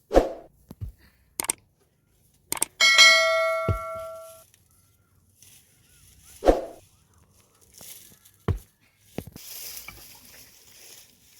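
Metal cookware being handled: a series of knocks and clatters, with one strike about three seconds in setting a metal vessel ringing clearly for over a second before it fades. Scattered thuds follow.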